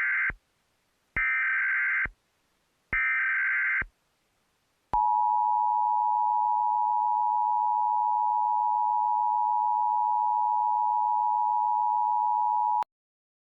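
Emergency Alert System alert opening: three bursts of SAME digital header data tones, each just under a second long, then the steady two-tone EAS attention signal (853 and 960 Hz together), held for about eight seconds before it cuts off.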